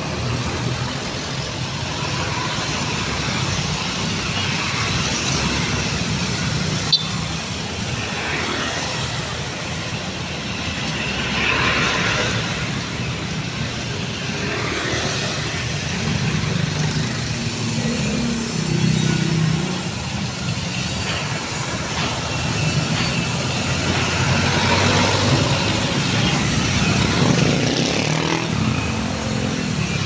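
Slow city street traffic: cars, motorcycles and trucks running past with their engines humming steadily. One sharp click about seven seconds in.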